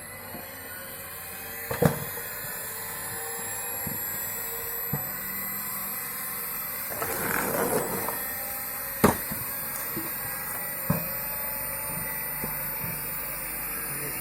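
Homemade screw-cone log splitter's 350 W washing-machine motor running steadily while logs are split. Several sharp knocks of wood cracking come through, and about seven seconds in there is a longer crackle of wood tearing apart.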